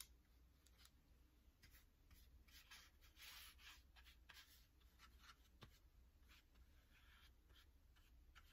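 Faint swish and scratch of a wide flat paintbrush stroked across watercolour paper, a run of short strokes, the loudest about three seconds in.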